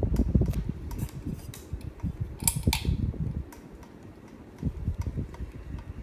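Seagull Lighting Main Street ceiling fan running, with an uneven low rumble and scattered light clicks. A sharp double click comes about two and a half seconds in.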